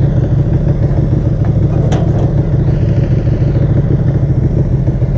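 Sport motorcycle engine idling steadily at close range, with a single sharp click about two seconds in.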